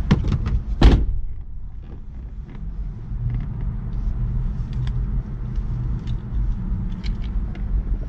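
The driver's door of a 2007 Honda S2000 shutting with a single loud thud about a second in, followed by small clicks and rustles as the driver settles in, over a steady low rumble.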